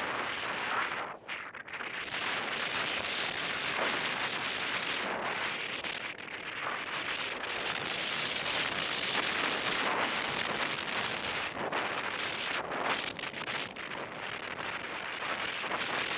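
Wind rushing over a helmet-mounted camera's microphone and skis hissing through deep powder snow during a downhill run, a steady noisy rush that dips briefly about a second in.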